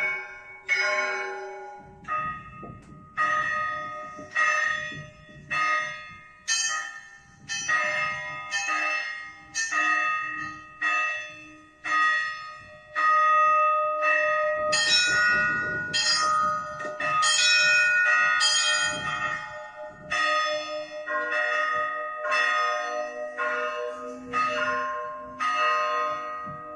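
Church bells rung by a bell ringer: a rhythmic peal of several bells of different pitches, struck about once a second, each ringing on into the next. About halfway through the strokes crowd together into a louder, fuller stretch, then the steady pattern returns.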